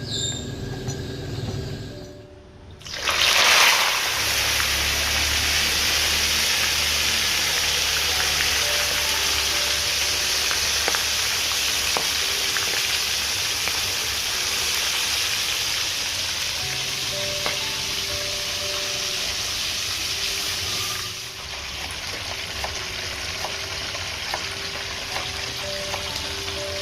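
Fish frying in hot oil: a loud sizzle starts suddenly about three and a half seconds in and keeps going steadily, easing a little near the end. Soft background music plays underneath.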